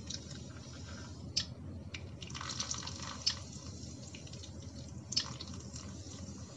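Sprite poured from a can onto raw chicken pieces in a glass bowl, the liquid splashing and the soda fizzing, with a few sharper splashes along the way.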